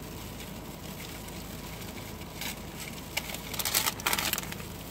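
Paper receipts rustling and crinkling as they are handled: a brief rustle about two and a half seconds in, then a denser spell of crinkling from about three seconds to four and a half, over a steady low hum.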